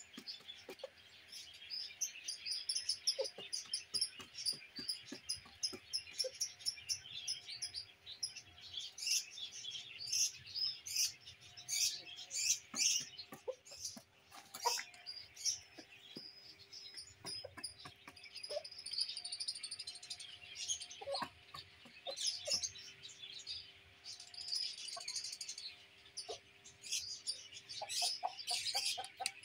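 A rooster's beak tapping on a plastic tabletop as it pecks grain, in quick irregular clicks, over steady high chirping of small birds. A few clucks come near the end.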